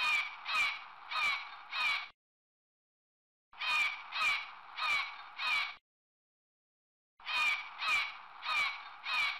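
Bald eagle calling: three bouts of four short, high, piping notes, each bout about two seconds long with a pause between.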